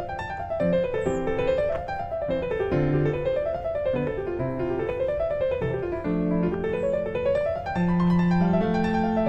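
Background piano music: rippling notes that rise and fall in repeated waves over held bass notes.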